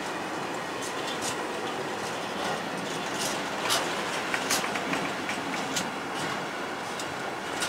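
Container freight train's loaded flat wagons rolling past close by: a steady rumble and rush of wheels on rail, with sharp wheel clicks and knocks that start about halfway through and come irregularly.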